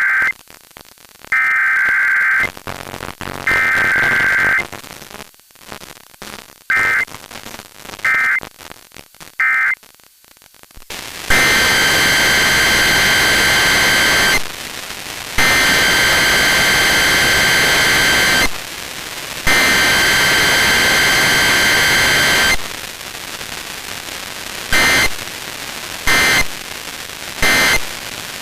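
Emergency Alert System digital data bursts: the screechy SAME header tones sent three times, about a second each, then three shorter bursts. Then a loud, harsh, static-like buzz runs for about eleven seconds with brief breaks. Three short data bursts near the end are the end-of-message signal.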